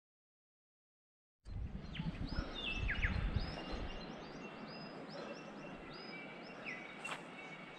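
Silence for about a second and a half, then birds calling in bushland: a quick run of short, repeated high chirps and one falling call, over steady outdoor ambience with a low rumble at first.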